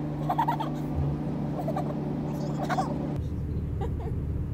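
Steady low hum of a moving passenger train, heard from inside the carriage; the hum changes about three seconds in.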